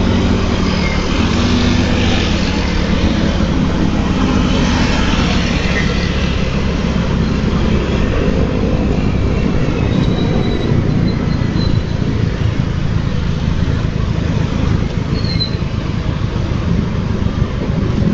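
A motor scooter running at riding speed in road traffic, heard from the rider's helmet camera with a steady, heavy rumble of wind and road noise on the microphone.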